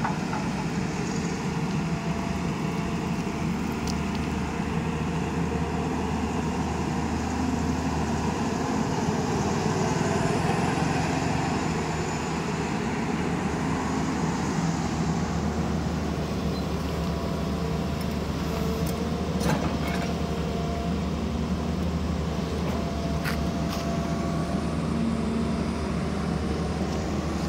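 Tata Hitachi 200 hydraulic excavator's diesel engine running steadily under load as the machine digs and swings its boom, growing a little louder around ten seconds in. A few sharp knocks in the second half.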